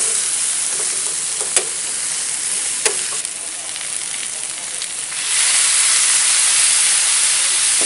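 Pork belly pieces sizzling in hot fat in a frying pan, with two sharp clicks of the metal spatula against the pan. About five seconds in, vinegar is poured into the hot pan and the sizzle jumps to a louder, steady hiss as the liquid boils off in steam.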